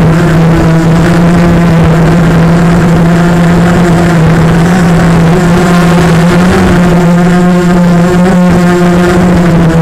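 Brushless motors and propellers of a 250-size racing quadcopter (Cobra 1960kv motors) running, a loud steady buzz that holds nearly one pitch with small wavers.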